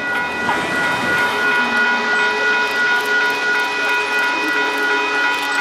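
Union Pacific 4014 'Big Boy' steam locomotive's whistle blowing as it approaches: one long, unbroken chord of several steady tones.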